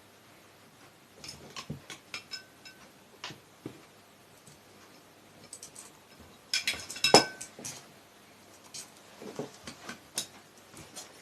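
Scattered clicks and small metal clinks from tools and parts being handled during sewing machine motor repair work, with one louder, ringing clink about seven seconds in.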